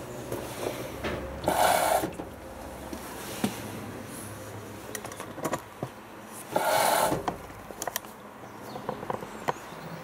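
LG Direct Drive F1222 front-loading washing machine tumbling its wash load: a short, loud swish of laundry in the drum twice, about five seconds apart, with light clicks and taps of the load against the drum in between over a low running hum.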